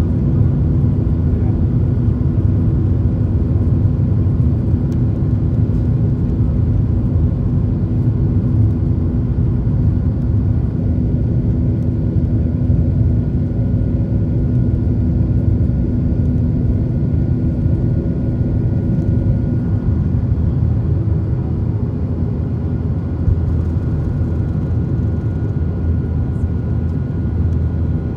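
Boeing 737-800's CFM56-7B turbofan engines at takeoff thrust, heard from inside the cabin during the takeoff roll: a steady, loud rumble with a few held droning tones.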